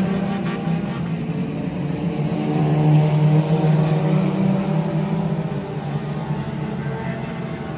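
Front-wheel-drive dirt-track race cars' engines running as the cars circle the oval, the engine note shifting in pitch and loudness as they pass.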